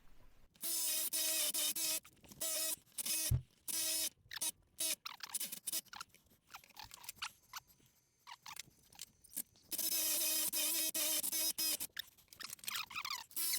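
Cordless drill with a spade bit boring through wood, running in bursts: a steady motor whine over the scraping of the bit cutting, stopping and starting several times, with a quieter pause in the middle and a longer run near the end.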